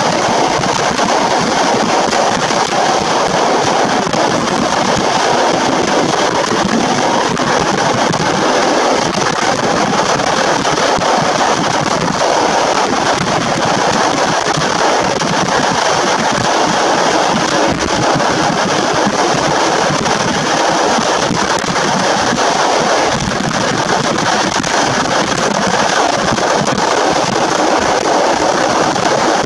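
Locomotive-hauled passenger train running at speed through a tunnel: a loud, steady rumble and rush of wheels on rails.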